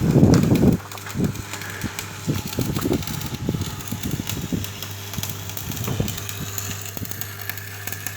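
Electric welding arc crackling and sputtering irregularly, loudest in the first second, over a steady electrical hum.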